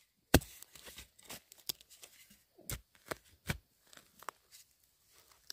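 Irregular sharp knocks and crunching crackles, a few of them loud, with quieter rustling between.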